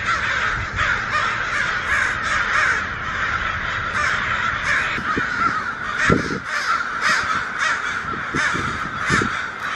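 A flock of crows cawing continuously, many calls overlapping into a steady din.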